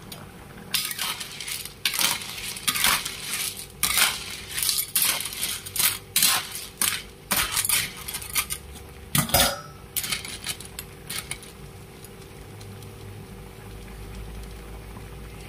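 Metal spatula stirring sea snails in their shells in a metal wok: rapid, irregular clinks and scrapes of shells and spatula against the pan for about ten seconds. The stirring then stops, leaving the low steady bubbling of the boiling broth.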